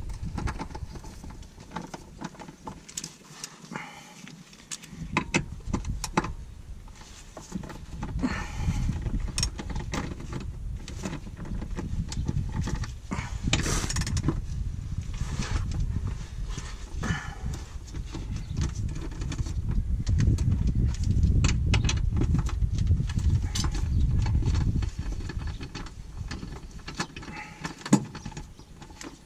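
Socket wrench and hand tools clinking and knocking on metal while bolts are worked loose under a car, over a low rumble that swells in the middle and fades near the end.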